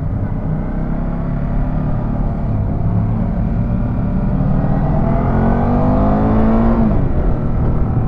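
Ducati Multistrada 950's L-twin engine under way, pulling steadily, then revving up in pitch from about halfway through and easing off near the end, over a low rumble of wind and road.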